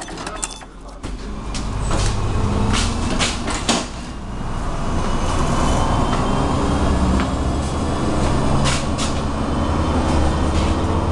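Inside a MAZ-107 city bus: the diesel engine and road noise build up about a second in as the bus gets moving, then run steadily. The body knocks and rattles a few times, in a cluster around three to four seconds in and once more near the nine-second mark.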